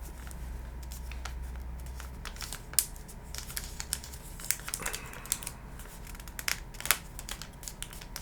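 Thin kami origami paper being folded and creased by hand: soft crinkling with scattered sharp clicks and rustles as the crease lines are pressed in.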